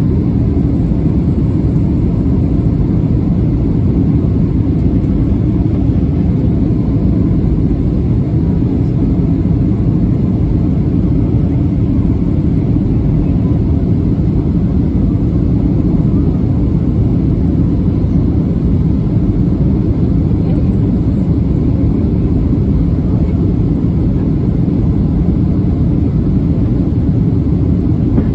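Steady low rumble of engine and airflow noise inside the cabin of a Boeing 737-700 airliner on approach.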